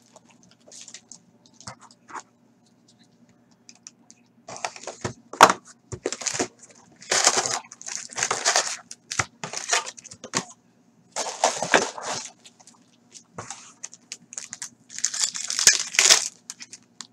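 Upper Deck Full Force hockey card box being opened and its foil card packs torn open: a run of short tearing and crinkling bursts of cardboard and wrapper, starting a few seconds in, with one sharp snap among them.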